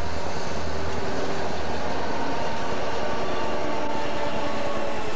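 A helper set of Southern Pacific and Santa Fe diesel-electric locomotives passing close by, engines running with a steady low hum.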